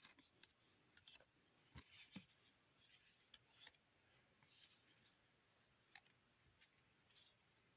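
Faint scraping and rustling of trading cards sliding over one another as a handful is flipped through card by card, in short irregular strokes.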